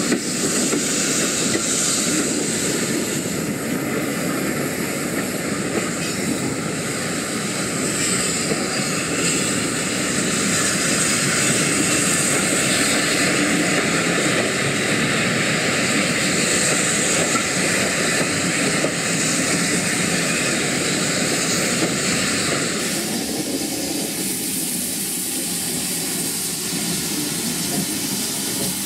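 Steam train running: a steady hiss and rumble from a GWR 0-6-2T tank locomotive hauling its coaches. About three-quarters of the way through, the hiss drops away and a lower steady rumble remains.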